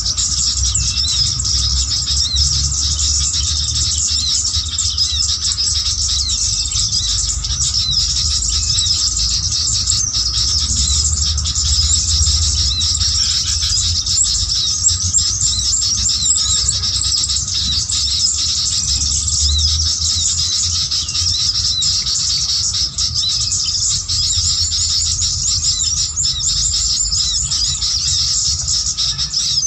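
Dense, unbroken chorus of many small birds' high chirps and trills, the kind of lure call used to trap sooty-headed bulbuls, with a low rumble underneath.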